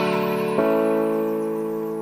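Background music: sustained keyboard chords, a new chord struck about half a second in, each slowly fading.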